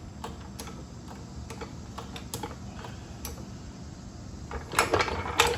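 Scattered light clicks and knocks of a jack being set and worked under a zero-turn mower, with a louder cluster of clanks near the end.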